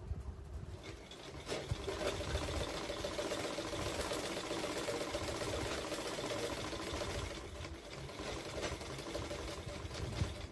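Household sewing machine running steadily as it stitches, starting about a second in, with a short dip in level near three-quarters of the way through.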